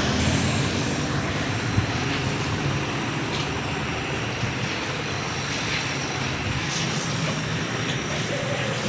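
Refrigerator compressor running with a steady hum. A single short knock comes a little under two seconds in.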